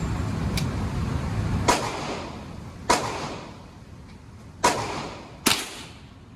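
Four gunshots, irregularly spaced over about four seconds, each followed by a short ringing tail. Before the first shot there is a steady low rumble, which drops away as the shooting starts.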